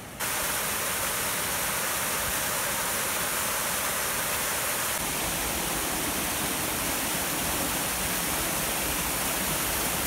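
Small cascades on Big Sandy Creek, water rushing steadily over and between boulders.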